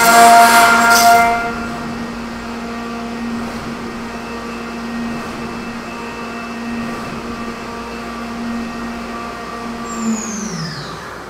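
Enshu GE460H machining center milling an aluminum block at high speed: a loud high whine over the hiss of cutting for the first second and a half, then a quieter steady whine from the spindle and cutter. Near the end the pitch falls as the spindle slows down.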